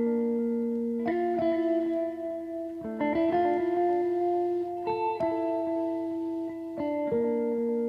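Background music: a slow, sustained guitar melody, with new plucked notes struck about every two seconds.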